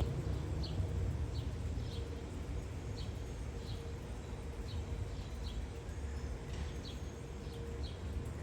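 Distant Whelen outdoor warning sirens sounding a steady tone for the monthly test, swelling and fading, over a low rumble. A bird chirps about once a second.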